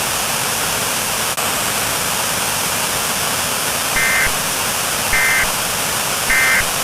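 Steady static hiss, with three short bursts of two-tone warbling data about a second apart near the end: the Emergency Alert System end-of-message (NNNN) tones.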